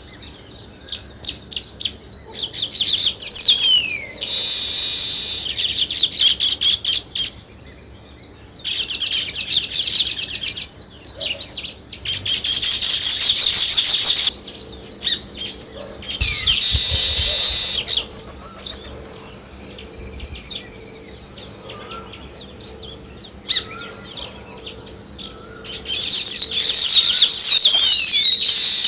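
A flock of weaver birds chirping at their nests: a run of quick, sharp chirps broken by several loud spells of dense, overlapping chatter lasting a second or three each.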